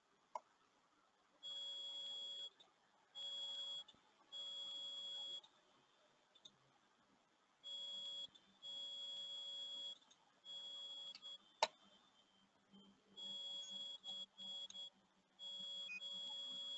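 Faint electronic beeping: a steady high-pitched tone sounding in beeps of roughly a second each, irregularly spaced, with a couple of clicks, the loudest a sharp click about two-thirds of the way through.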